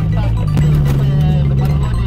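Background music over a low, steady hum.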